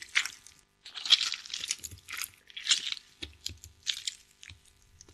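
Metal spoon scraping and clinking against an aluminium pot as it chops through soft, boiled jackfruit in coconut milk. The strokes come in a series, roughly one every half second to second.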